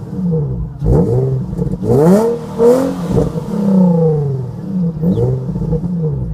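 2006 Nissan 350Z's 3.5-litre VQ35DE V6 on its stock exhaust, revved in a series of quick blips. Its pitch rises sharply and falls back to a steady idle several times.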